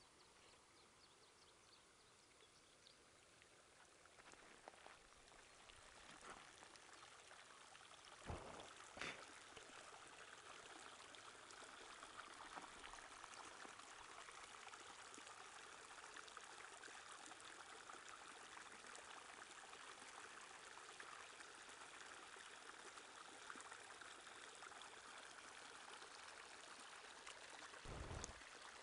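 Faint, steady trickle and rush of a shallow runoff stream flowing over rocks and gravel, newly formed after a monsoon rainstorm. It grows louder over the first several seconds, then holds steady. A few short low thumps come a third of the way in and again near the end.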